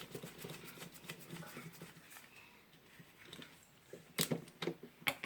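Faint handling noise of the angle grinder's opened handle and switch parts, with a few sharp clicks about four and five seconds in.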